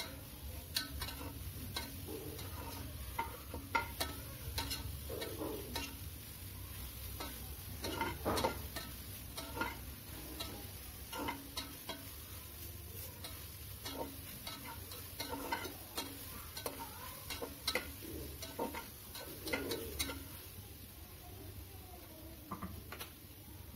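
Steel spatula scraping and knocking against the inside of an aluminium pressure cooker as soya chunks and onion are stirred and sautéed in a little oil, with a light sizzle underneath. The strokes come at an uneven pace and grow sparse near the end.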